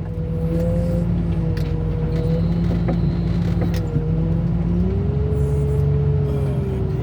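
Loader's diesel engine running steadily, with a hum whose pitch shifts about five seconds in, and a few faint knocks.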